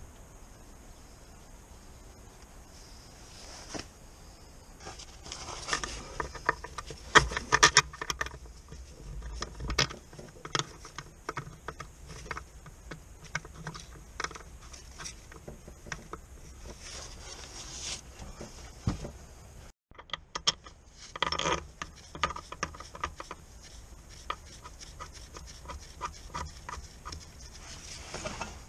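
Small metallic clicks, taps and rattles of hand tools and bolts being worked at the top of a gearbox casing. There are louder clusters of clicks about seven seconds in and again just past twenty seconds, and scattered ticks in between.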